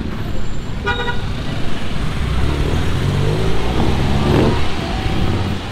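A red tuk-tuk's engine runs as it passes close by and drives on, with a steady low rumble of traffic. A short vehicle horn toot sounds about a second in.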